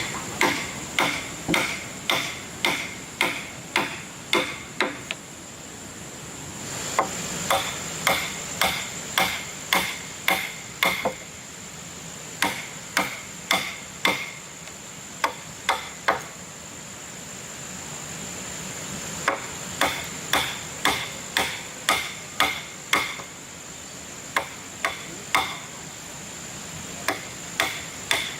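Hammer blows, about two a second, in runs of several strikes separated by short pauses, each with a slight metallic ring. A steady high insect drone runs behind them.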